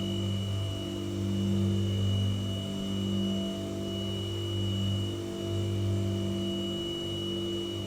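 White noise sound machine running: a steady low hum with a thin high whine above it and a faint hiss, slowly swelling and easing every second or two.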